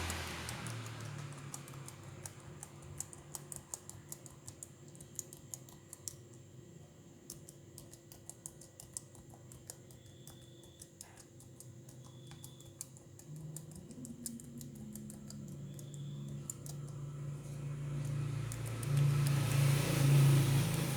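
Keys being typed on a laptop keyboard: irregular, quick key clicks that thin out after the middle. A low hum builds in the last several seconds and becomes the loudest sound.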